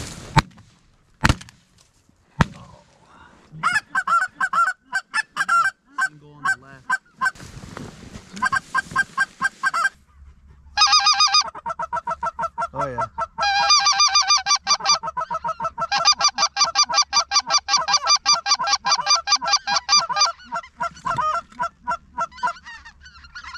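Three quick shotgun shots, then goose honking: many short honks, sparse at first and then fast and overlapping through the second half.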